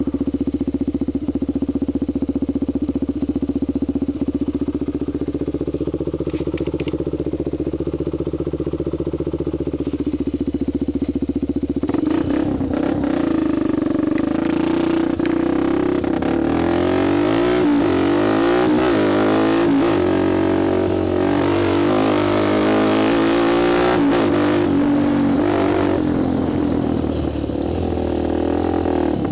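Honda TRX250X quad's single-cylinder four-stroke engine idling steadily, then revved and ridden from about twelve seconds in. Its pitch climbs and drops again and again with throttle and gear changes, then evens out near the end.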